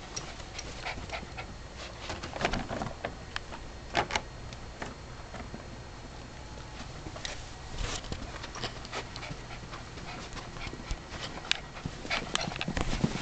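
A papillon dog and a pet ferret playing: irregular scuffling with many short taps and clicks, a few louder knocks about four seconds in and near the end.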